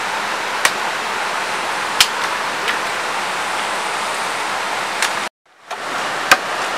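Steady rush of a fast rocky mountain river running over rapids, with a few sharp clicks standing out of it. The sound cuts out for about half a second about five seconds in, then the river rush returns.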